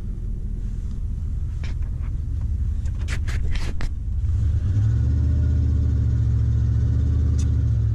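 Chevy Silverado 2500's 350 V8 engine heard from inside the cab, pulling the truck away. There are a few sharp clicks about three seconds in. From about halfway it gets louder under throttle and holds a steady pitch with no upshift, which the driver takes to mean the transmission is stuck in one gear, third or so.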